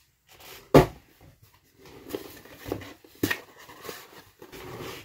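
Cardboard boxes being handled and opened: a sharp knock less than a second in, then irregular rustling and scraping of cardboard with a few light taps.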